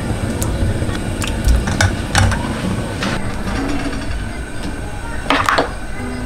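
Kitchen handling noises: a pull-out spice-rack drawer on metal runners and the bottles in it knocking as one is taken out, with a few sharp clicks and a louder rattle near the end over a steady hum.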